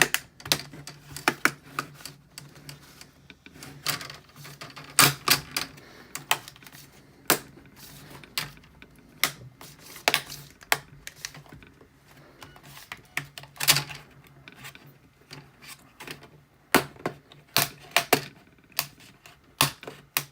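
Plastic screen bezel of a Lenovo IdeaPad 320 laptop being pried off, its clips snapping and clicking loose in irregular sharp clicks, with a faint steady low hum underneath.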